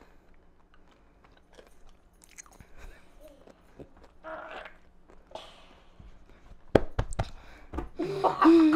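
A pickle being bitten and chewed up close: soft crunches and wet chewing, with a few sharp crunchy clicks about seven seconds in. Near the end a child makes a short, loud vocal sound.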